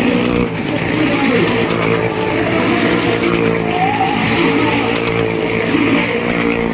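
Motorcycle and car engines running steadily as they circle the vertical wooden wall of a Well of Death drum.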